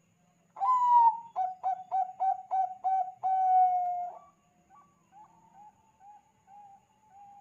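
Zebra dove of the Bangkok perkutut strain singing one song phrase. About half a second in it gives a long coo, then a run of about six quick clipped notes and a longer drawn note, which trail off into softer, shorter coos.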